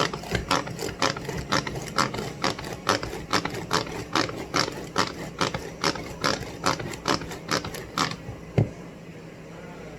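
Manual food processor being worked by hand, its mechanism clicking in a fast, even rhythm of about four clicks a second as the blade spins and chops ice cream and Oreos. The clicking stops after about eight seconds, followed by a single low knock.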